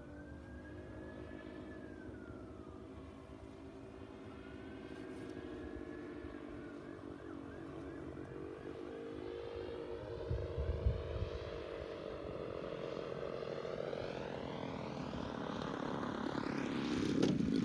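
Twin DLE-35RA two-stroke gasoline engines of a large radio-controlled F7F Tigercat model droning in flight, the pitch slowly shifting. It grows steadily louder as the plane comes down toward the field to land.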